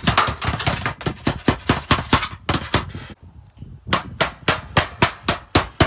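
Hammer striking the folded edge of a steel roof shingle in rapid metallic blows, about four a second, with a short pause a little after three seconds in.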